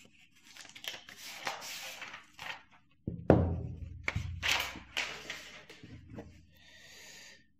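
Rustling and crinkling of a protective plastic sheet being peeled off and handled over an e-reader's screen, with one heavy thump about three seconds in as the tablet is set down on the table.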